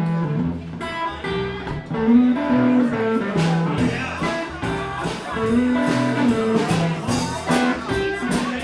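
Guitar playing a repeating blues riff, with sharper, brighter attacks from about three seconds in.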